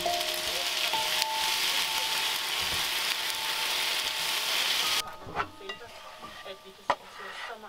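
Sliced vegetables sizzling in a non-stick frying pan on a gas hob while being stirred with a spatula. The sizzle cuts off suddenly about five seconds in, and light scraping taps of the spatula follow as the food is slid out of the pan onto a plate.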